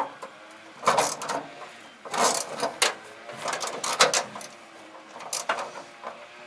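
Ratchet wrench cranking hood-hinge bolts tight, in about five short bursts of clicking.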